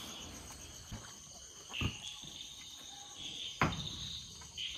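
Insects chirring steadily at a high pitch, with two dull thumps, one about two seconds in and a louder one about three and a half seconds in.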